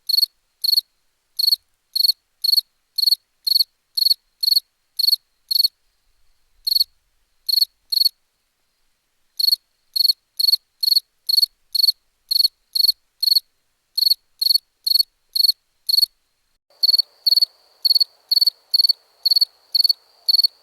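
Crickets chirping in short, regular, high-pitched pulses, about two a second, with a brief pause near the middle. Toward the end the chirps come quicker over a steady high trill and a faint background hiss.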